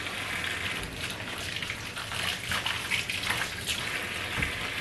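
Kitchen tap running into a stainless steel sink, the water splashing steadily as a plantain is rinsed and rubbed by hand under the stream.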